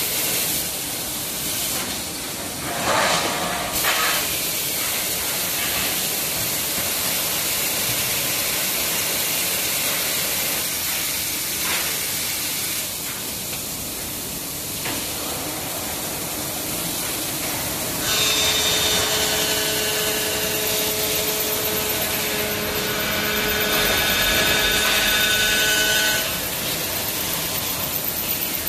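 Machinery of an elevator guide rail planing line running, a steady noisy hiss. Between about 18 and 26 seconds in, a machine whine of several steady tones rises over it, and a couple of brief louder noises come about three seconds in.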